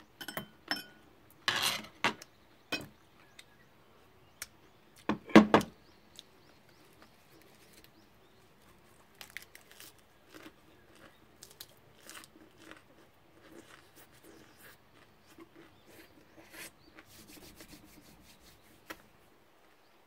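Eating sounds from a wrap of raw leafy greens. It starts with a few sharp clicks of stainless-steel chopsticks, then a loud crunching rustle of the leaves as the big wrap is bitten into about five seconds in. After that comes soft, irregular crisp chewing.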